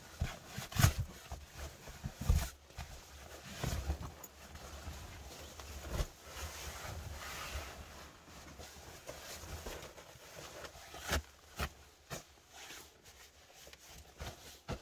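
Rustling and swishing of a synthetic sleeping bag being unrolled and spread over a quilted blanket on dry grass bedding, with irregular soft taps and knocks as it is handled. A couple of louder thumps come in the first few seconds.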